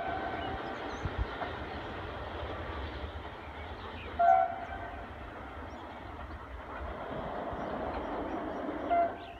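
Electric train horn: a long loud blast cuts off right at the start, then two short toots follow, about four seconds in and again near the end, over the steady rumble of a train running.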